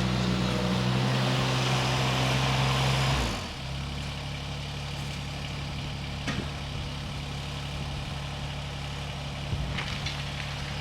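A machine engine running steadily, dropping to a quieter, lower hum about three seconds in, with a single short knock about six seconds in.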